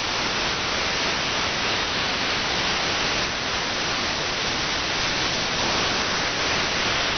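Steady hiss of AM radio static from a web SDR receiver tuned to an empty spot on the medium-wave band, with no station coming through.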